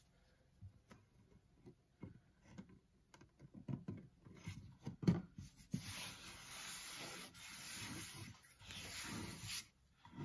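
A patterned plywood panel being fitted into a mahogany box lid: small wooden taps and clicks and one sharper knock about five seconds in, then hands rubbing and pressing across the panel's face for several seconds.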